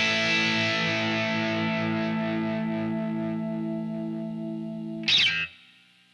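Electric guitar (a Stratocaster) through distortion pedals holding one chord that rings and slowly fades for about five seconds. Near the end comes a short, bright burst, and then the sound cuts away to near silence.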